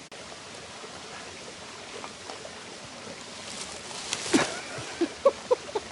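Steady rush of river water, with a few sharp clicks about four seconds in and, near the end, a quick run of short pitched chirps, about four a second.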